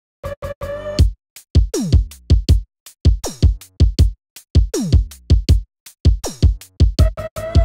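Electronic background music with a drum-machine beat: deep kick drums that drop in pitch, sharp hits and short synth notes.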